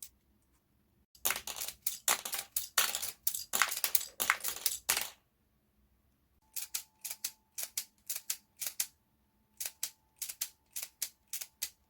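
LEGO Technic revolver mechanism being worked by hand: about four seconds of loud plastic clacking and rattling, then after a pause a run of sharper plastic clicks, often in pairs.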